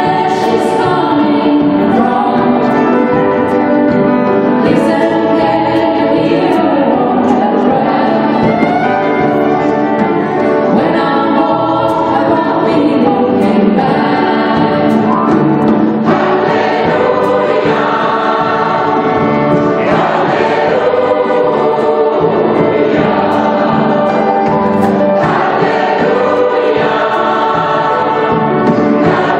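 Gospel choir singing together, with lead voices amplified through handheld microphones.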